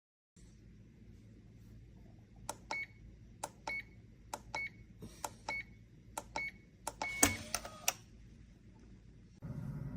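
Electronic safe lock being worked: about six button presses a little under a second apart, each a click with a short high beep. Then a longer beep and a few mechanical clicks as the lock releases, and a low steady hum starts near the end.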